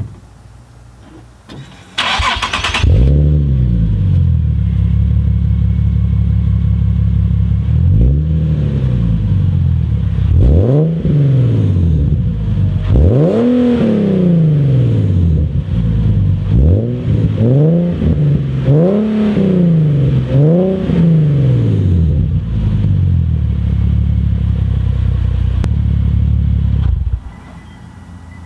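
Nissan 370Z's 3.7-litre V6 with an aftermarket exhaust, heard at the tailpipes. It starts about two seconds in, settles to a steady idle, then is revved in about half a dozen quick blips, each rising and falling in pitch, before idling again.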